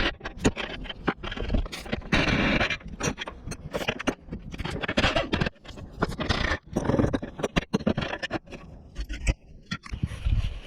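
Metal scraping with many sharp clicks and clanks of hand tools and steel parts as a rear bumper bracket is unbolted and worked off a car bumper.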